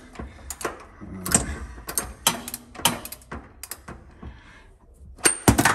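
Ratchet wrench clicking in quick, irregular strokes as it is swung back and forth on the hex head of a water heater anode rod, unscrewing it. The clicks pause about four seconds in, then come louder near the end.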